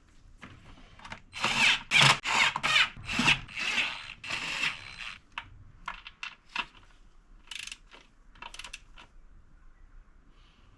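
Hand ratchet wrench clicking rapidly as nuts are run down onto the intake manifold studs, followed by a few scattered clicks and taps.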